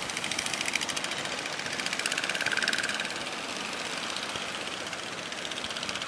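Engine of a wooden outrigger fishing boat running at speed, a fast even pulsing that swells and fades slightly as the boat passes, over the rush of water and surf.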